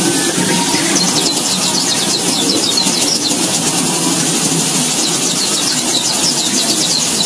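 Weaver birds (manyar) chattering: a dense run of rapid, high chirps repeating several times a second, over a steady low rumble.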